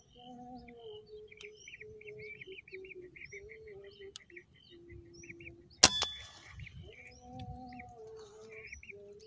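A single sharp gunshot a little past the middle, with a short ringing tail: the shot that brings down one lesser whistling duck. Around it, birds chirp in quick repeated notes and a low droning tone comes and goes.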